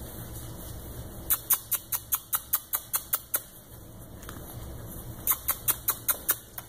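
Puppies' claws scratching and pawing at fabric bedding, heard as a quick, even run of scratchy clicks about five a second, twice, with a short pause between.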